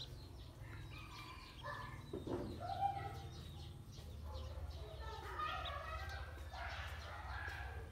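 A brood of domestic ducklings peeping as they swim in a basin of water, many short calls overlapping, busiest in the last few seconds.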